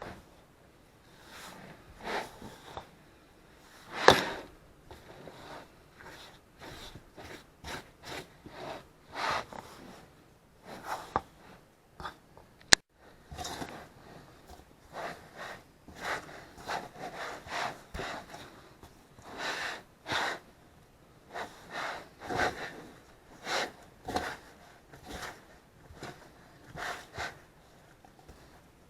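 Sticky yeast dough for cinnamon rolls being mixed in a bowl: irregular wet squelches and slaps, about one or two a second, with one sharp click near the middle.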